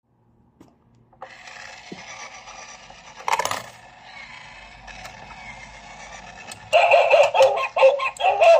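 Electronic dog-house coin bank toy starting its tinny jingle about seven seconds in, set off by a coin pressed onto the pad at its front door. A short clink comes about three seconds in.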